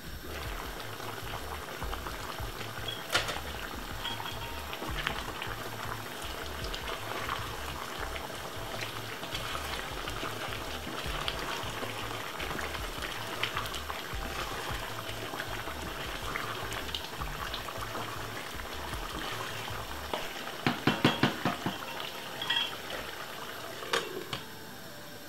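Stew chicken bubbling and sizzling in a pot on the stove while a wooden spoon stirs it. Near the end comes a run of sharp knocks, then a clink as the glass lid goes back on.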